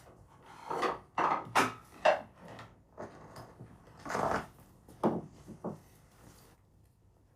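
A string of short scrapes and knocks of food being handled and mixed with kitchen utensils, loudest in the first two seconds, dying away about six and a half seconds in.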